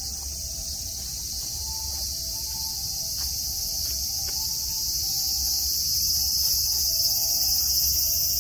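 Chorus of summer cicadas: a dense, high-pitched drone that swells louder over the few seconds.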